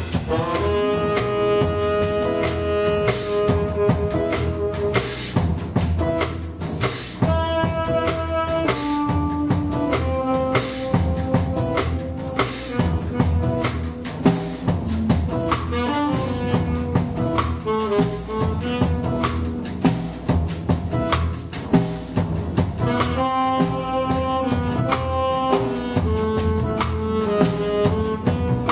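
Live ensemble music: a melody of held notes that change every second or so, over busy, steady drums and hand percussion.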